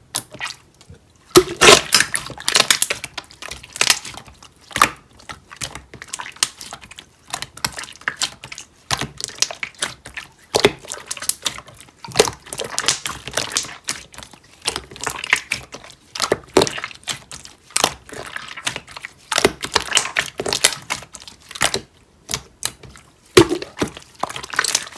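Clear slime being squeezed and pressed by hand, making dense, irregular crackling clicks and pops with short pauses between handfuls.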